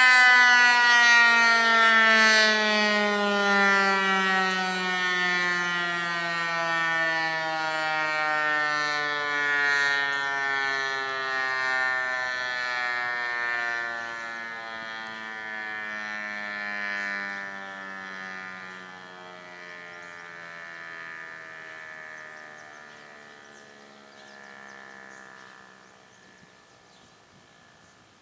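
Federal Signal Eclipse 8 electronic outdoor warning siren winding down at the end of a short alert: one long wail whose pitch slowly slides down as it fades, dying away almost to nothing near the end.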